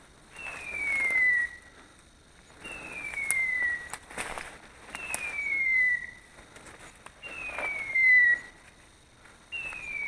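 Electronic beeper collar on a hunting dog, sounding a falling tone about a second long five times at an even pace of roughly one every two and a half seconds. A few sharp snaps of twigs underfoot fall between the tones.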